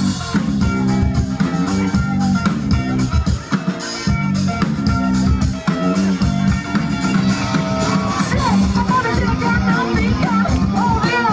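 Live rock band playing loud: drum kit, bass guitar and electric guitar, with a wavering higher melody line coming in about eight seconds in.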